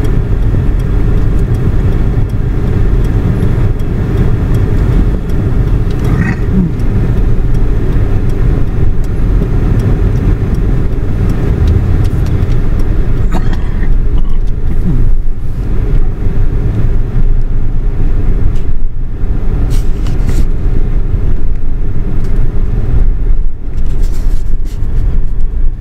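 Steady low rumble of a taxi driving along, heard from inside the cab.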